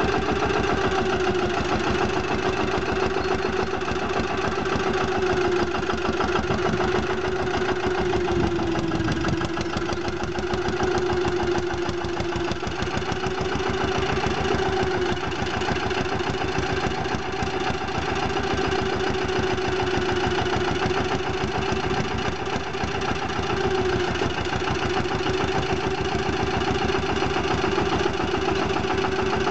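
Petter PAZ1 single-cylinder diesel engine, 1.5 hp and governed at 1500 rpm, running steadily with a rapid, even beat while it drives the front-loader hydraulics raising the bucket. Its pitch sags slightly for a few seconds about a third of the way in.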